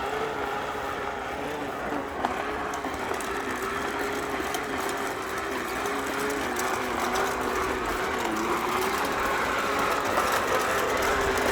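Toy bubble lawn mower's small battery-powered motor whirring steadily, its pitch wavering slightly, with faint ticking from its gears.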